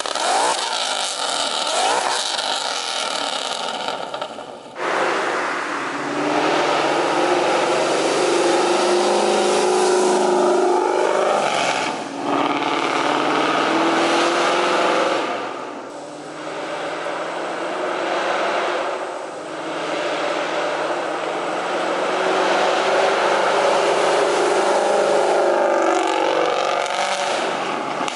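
Ford Mustang GT's 5.0 V8 through AWE Touring axle-back mufflers, revving up through the gears with a raspy exhaust note. The pitch climbs and then falls back at each of several gear changes.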